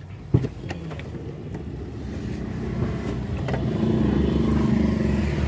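Motor vehicle engine running, growing steadily louder, with a single sharp knock about a third of a second in.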